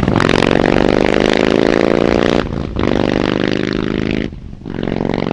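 Harley-Davidson Heritage Classic 114's V-twin engine pulling away under throttle. It rises in pitch through each gear, with two short dips where it changes up about halfway through and near the end.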